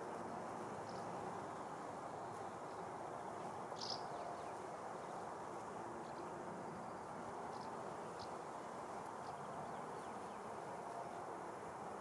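Honeybees buzzing as they forage on lavender: a steady, overlapping hum. A few short high chirps cut in, the clearest about four seconds in.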